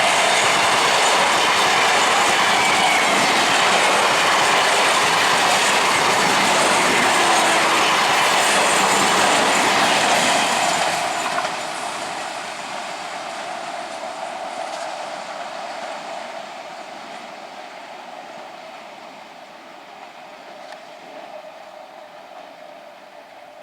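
A train passing on the rails: a loud, steady rush of wheels and carriages for about eleven seconds, then dropping away and fading as it moves off, leaving a thin steady whine.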